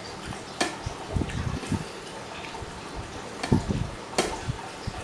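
Wet, sticky eating sounds of people eating rice and curry with their hands, with two sharp clicks, about half a second in and near the end.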